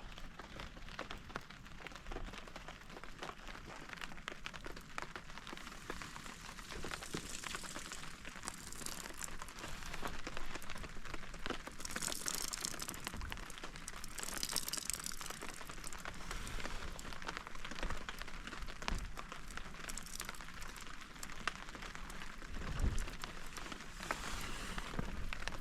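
Rain falling steadily, a dense patter of many small drop impacts.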